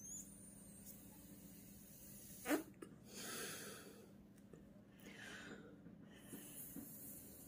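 Breath blown through a plastic straw into a nano tape balloon that is failing to inflate: puffs of air, with a short rising squeak about two and a half seconds in.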